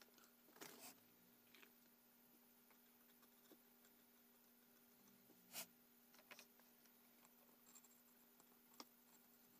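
Near silence with a few scattered faint clicks and taps of small repair tools on a phone circuit board, the loudest about five and a half seconds in, over a faint steady hum.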